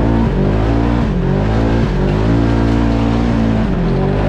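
Polaris RZR side-by-side's engine revving up and down under throttle while driving on a rough dirt track, heard from inside the open cab. The engine note drops about a second in and again near the end, then climbs back.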